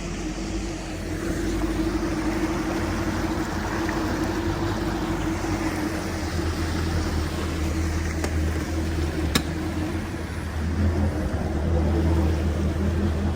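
Boat's outboard motor running steadily with a low hum, over a constant rush of wind and water noise.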